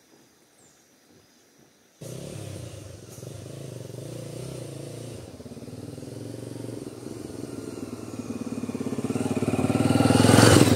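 Motorcycle engine running at low speed while the bike is ridden, starting abruptly after a couple of seconds of near quiet. It grows louder over the last few seconds until its rapid firing pulses stand out.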